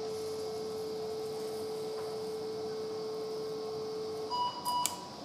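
Electrosurgical (electrocautery) unit's activation tone: one steady tone held for about four seconds, then it stops and a shorter, higher tone sounds near the end with a couple of sharp clicks.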